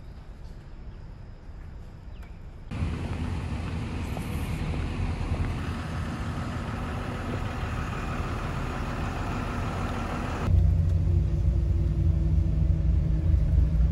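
Quiet outdoor background hiss, then from about three seconds in louder outdoor traffic and vehicle noise. From about ten seconds in, a vehicle's engine drones steadily from inside its cabin.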